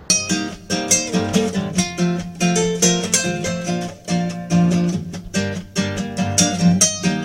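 Acoustic guitar music, quickly picked and strummed notes, starting abruptly about the first instant.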